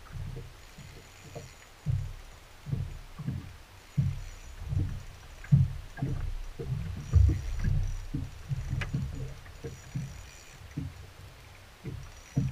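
Small waves slapping against the hull of a bass boat: a string of irregular low thumps, about one a second, loudest midway.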